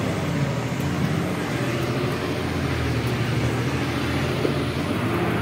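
A loaded tipper truck's diesel engine pulling steadily in first gear, heard from inside the cab, with road noise from the truck crawling over a rough, potholed dirt track.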